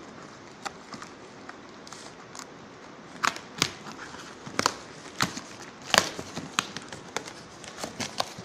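Tape-wrapped cardboard parcel being unwrapped by hand, its plastic packing tape and film crackling. A few faint clicks come first, then a dense run of sharp crackles from about three seconds in, loudest near the middle.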